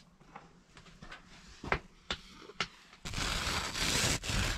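A few faint clicks and knocks, then, about three seconds in, a gloved hand rubbing across frost on a tarp ceiling: a scratchy brushing that lasts about a second and a half.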